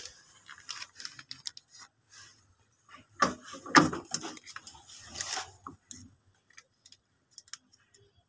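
Scattered clicks and rustles of small plastic parts and a clear plastic bag being handled by hand, a little louder a few seconds in.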